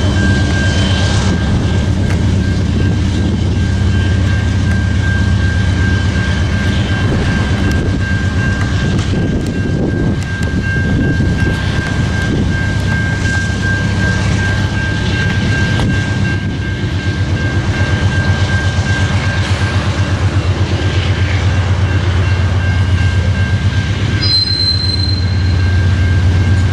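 Railroad ore hopper cars rolling past with a steady low rumble and rhythmic clacking of wheels over the rail joints and crossing, over a steady high ringing tone. A brief high squeal comes near the end.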